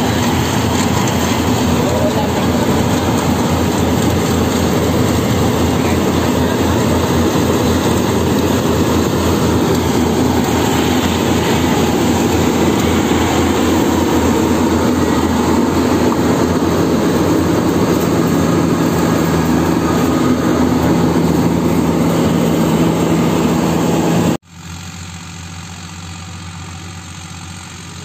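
Yanmar combine harvester running close by as it cuts standing rice: a loud, steady engine sound mixed with the noise of its cutting and threshing machinery. About 24 seconds in, the sound cuts abruptly to a quieter, steady engine sound.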